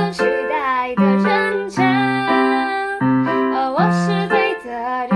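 Background music: a Mandarin pop song with piano chords and a female singing voice.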